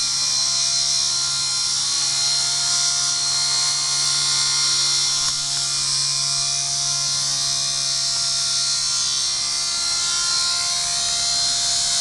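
Electric motor and rotors of a Helimax Black Hawk scale RC helicopter running, a steady high-pitched whine.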